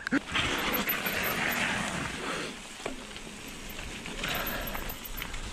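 Mountain bike rolling along a wet trail: a steady hiss of tyre and rushing-air noise that swells twice.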